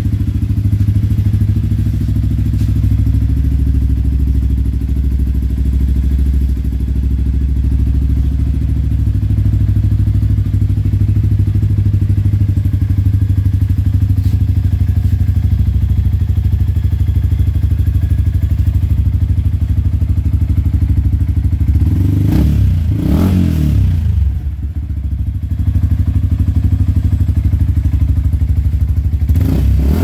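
Yamaha Sniper 155R's single-cylinder four-stroke engine idling through an aftermarket Racing Monkey 'Hun pipe' exhaust, blipped once about three-quarters of the way through with a rise and fall in revs, then back to idle, with another blip starting right at the end.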